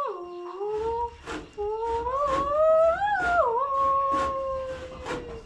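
A wordless, hummed-style vocal tune gliding up and down, with long held notes: a Khasi village name-tune, the personal melody a mother makes for her child and uses to call them. A series of short, faint knocks sounds behind it.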